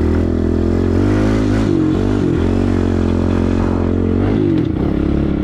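Pit bike's small engine running under way, the revs rising and falling as the throttle is worked.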